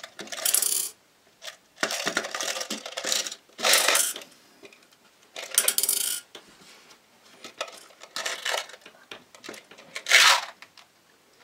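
Tic Tac mints dropped by the handful into a small stainless steel saucepan, clicking and rattling against the metal. There are about six short bursts a second or two apart, and the loudest comes near the end.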